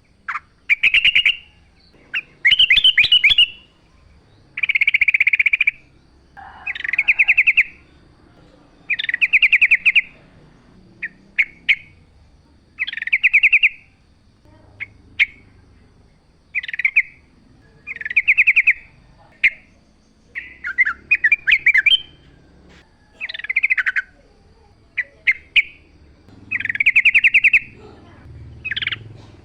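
Yellow-vented bulbul (trucuk) singing: short, bubbly, warbled phrases of about a second each, repeated roughly every two seconds, with a few quick single notes between them.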